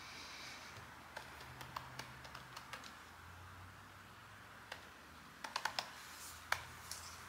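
Computer keyboard being typed on in short, irregular bursts: a few scattered key clicks, then a quick cluster of strokes about five and a half seconds in.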